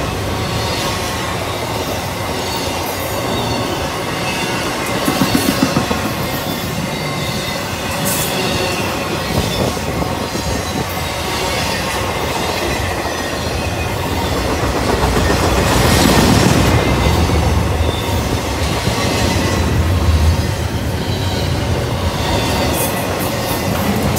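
Q020 intermodal freight train's container and trailer cars rolling past close by: a steady rumble of steel wheels on rail, with occasional clicks and a thin high squeal from the wheels.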